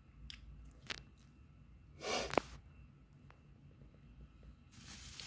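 Quiet handling noises of hands working with food and packaging: a few light clicks, a short rustle with a sharp click about two seconds in, and another rustle starting near the end.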